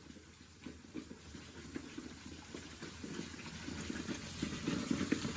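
Water sloshing and splashing in a bowl as a batch of prickly pear fruits is shaken in it to loosen their tiny spines. The splashing is irregular and grows a little louder toward the end.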